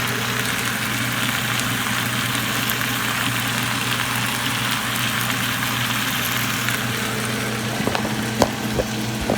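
Steady low machine hum under an even hiss, with a couple of sharp knocks about eight seconds in.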